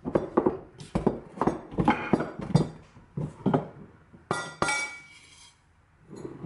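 Spoon and glass clinking and knocking as sugar is scooped from a glass canister into a glass measuring cup: a run of short knocks, with two ringing glass clinks about four seconds in.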